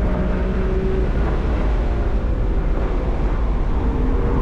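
BMW F83 M4's S55 twin-turbo straight-six heard from inside the cabin at high track speed. The engine runs steadily under a loud, even rush of wind and road noise with a deep rumble.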